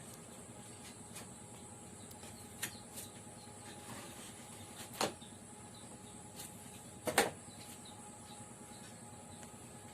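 A few scattered sharp clicks and knocks, the loudest a quick double knock about seven seconds in, over a faint steady background with a thin high-pitched whine.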